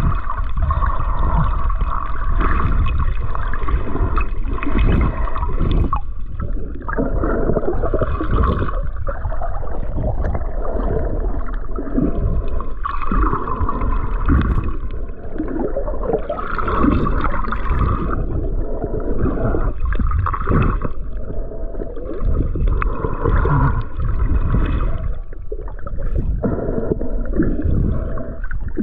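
Muffled water gurgling and churning, heard underwater while snorkelling, swelling louder every few seconds.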